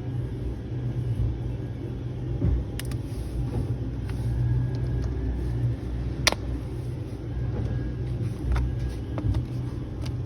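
Steady low rumble in the background, with a few sharp plastic clicks as a phone's back cover is pried open; the loudest click comes a little after the middle.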